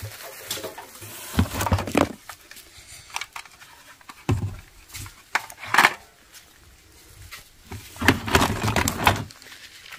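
Plastic toy guns clattering and knocking against each other and the cardboard as a hand rummages through a box of them: irregular knocks and rattles, with a longer stretch of rattling near the end.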